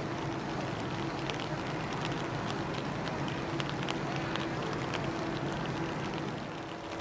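Light rain falling, with scattered sharp drip ticks, over a steady low machinery hum.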